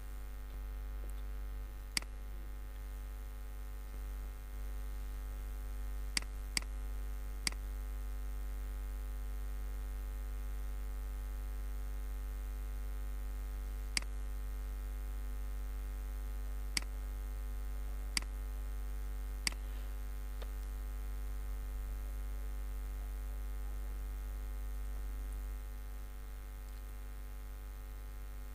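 Steady low electrical mains hum from the recording setup, with about eight sharp, scattered computer-mouse clicks, two of them close together around six seconds in.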